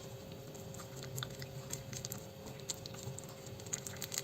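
Whisk mixing thick egg-and-flour batter in a bowl: faint, irregular wet squishing with light scattered taps, over a faint steady hum.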